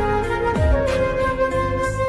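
Background music: a flute melody over a beat with deep bass hits that fall in pitch.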